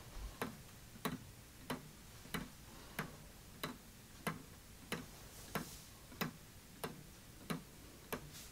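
3D-printed Large Easy Build Clock (SP4B), a weight-driven pendulum clock, ticking steadily. Its plastic escapement gives an even click about three times every two seconds.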